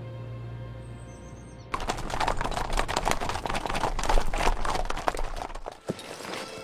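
Soft background music, then at about 1.7 s a group of horses breaks in at a gallop, a dense clatter of hoofbeats that lasts about four seconds and dies away near the end.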